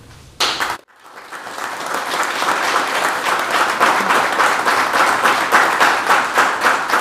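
A small audience applauding, the clapping building over the first couple of seconds and then holding steady. About half a second in there is a short loud noise that cuts off abruptly.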